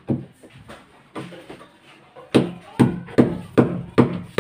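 Chisel being struck into the edge of a wooden door, cutting the recess for a doorknob latch. There is a sharp knock just after the start and a few lighter taps, then, from about two seconds in, a steady run of hard, ringing knocks about two and a half a second.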